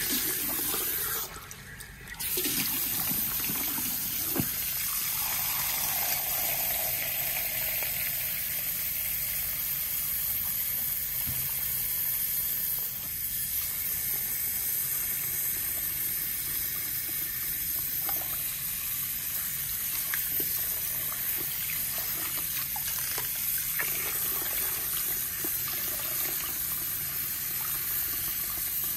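Water from a salon shampoo-bowl shower head running steadily over wet hair into the basin as the hair is rinsed. The flow briefly drops about a second and a half in, then runs on evenly.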